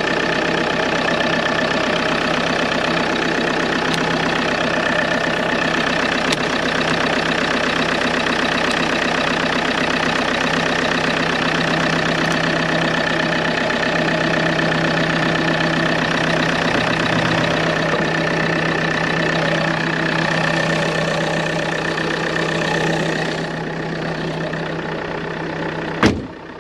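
Van engine idling steadily, just brought to life with a jump starter on a flat battery. It drops slightly in level near the end, and a single sharp thump comes just before the end.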